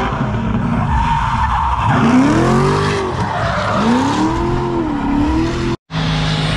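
Drift car engine revving hard, its pitch rising and falling again and again as the throttle is worked through the slide, over the squeal of the rear tyres skidding on the tarmac. The sound cuts out for an instant near the end, then carries on.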